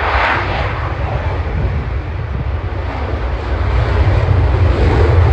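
Jet aircraft engine noise, a dense rushing rumble that grows louder toward the end as the aircraft approaches.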